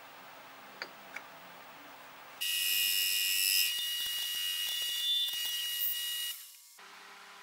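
Lathe tool cutting a thin ring off a spinning brass tube on a metal lathe, squealing high and steady for about four seconds. The squeal starts about two and a half seconds in and cuts off suddenly once the ring parts off.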